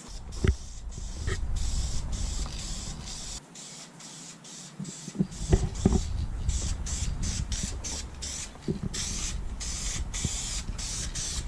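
Aerosol spray-paint can hissing in many short bursts as a first coat goes onto a dirt bike frame. The bursts come faster and closer together in the second half, over a low rumble, with a few light knocks near the start and around the middle.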